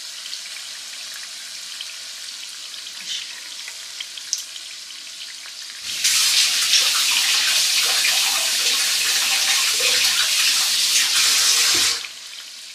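Battered Guyanese egg ball frying in a pan of hot oil, a steady low sizzle. About six seconds in, a much louder steady rushing hiss starts, runs for about six seconds and cuts off sharply.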